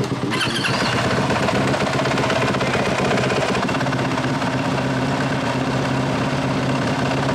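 Dirt bike engine running at a steady note, with a brighter rush of noise coming in just after the start.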